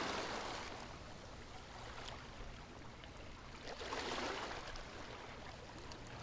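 Ocean waves washing on a shore, a soft rushing that swells and fades: one wave easing off over the first second, another building and falling back about four seconds in.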